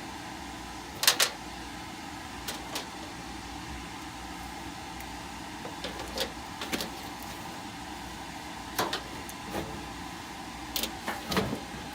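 Scattered clicks and knocks of parts and tools being handled at an open furnace cabinet, the loudest about a second in, over a steady hum.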